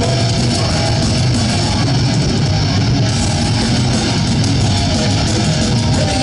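Punk rock band playing live in an instrumental passage: loud distorted electric guitars, bass and drums, with an even level throughout.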